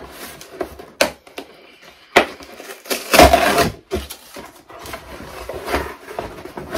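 Brown cardboard-and-paper shipping package being torn open and handled: crackling and rustling with sharp snaps, and a longer, louder rip about three seconds in.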